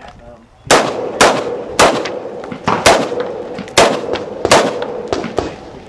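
A string of about seven gunshots fired in quick succession, irregularly spaced about half a second to a second apart, each with a short echo.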